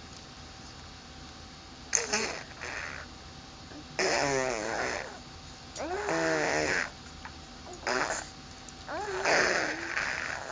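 A person making silly vocal noises: about five bursts of wobbling, warbling voice, each roughly a second long, with short pauses between.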